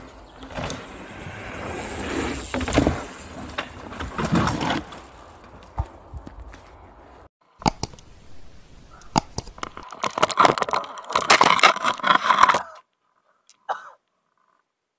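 Mountain bike ridden hard over rough ground: rushing tyre and wind noise with several knocks, then after a sudden break, dense rattling and clattering of the bike over a rocky dirt trail that cuts off abruptly.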